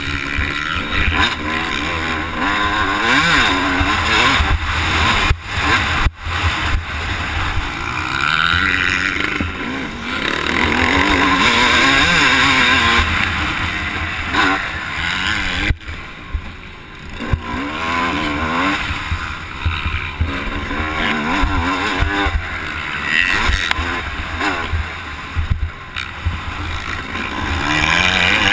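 Yamaha motocross bike engine revving hard and easing off over and over as it is ridden round the track, its pitch climbing and falling with the throttle, with a low wind rumble underneath. It drops back briefly a little past halfway before picking up again.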